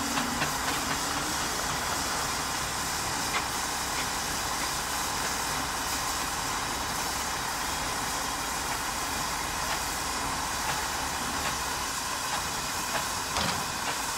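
Steam traction engines working slowly under a heavy haul: a steady hiss of steam, with a few sharp beats in the first second and again near the end.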